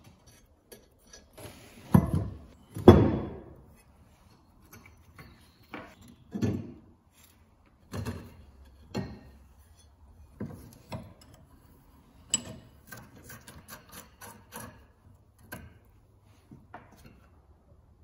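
Cast-iron stove parts being handled and set down on a wooden workbench: a series of knocks and clunks, the two loudest about two and three seconds in, followed by lighter taps and scrapes of metal.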